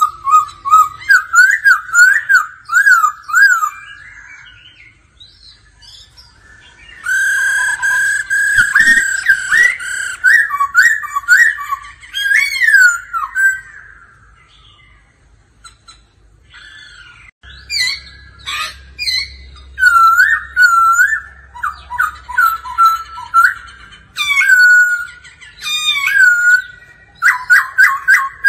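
Black-throated laughingthrush singing: loud, clear whistled phrases of quickly rising and falling slurred notes, in three bouts with short pauses between.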